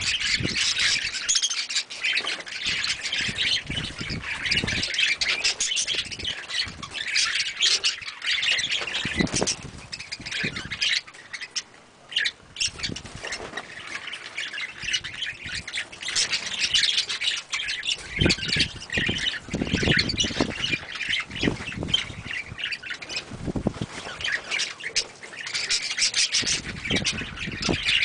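A group of budgerigars chattering and squawking with no let-up, several birds calling at once, with a brief lull about twelve seconds in.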